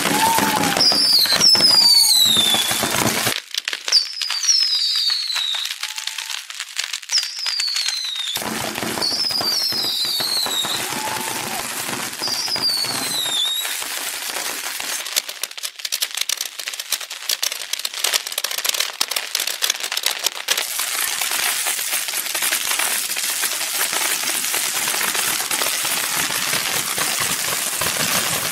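Fireworks fired in quick succession from a handheld rotating multi-barrel launcher: continuous crackling and popping. About half a dozen falling whistles in the first half, then a denser, steadier crackle.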